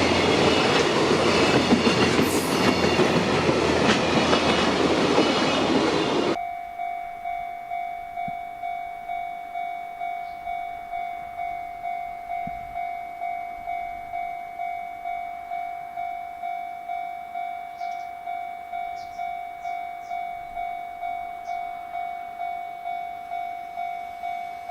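Freight train passing close, a loud rumble and clatter of wheels on rails that cuts off suddenly about six seconds in. Then a level crossing warning bell rings on evenly, a little under two strikes a second.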